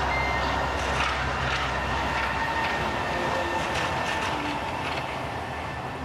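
Sydney Monorail train running along its elevated beam: a low rumble that fades away about halfway through as the train moves off, with a steady thin whine and a few faint clicks.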